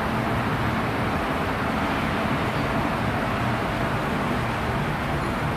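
Steady machinery noise: an even mechanical hum and rush with a faint low tone, unchanging throughout.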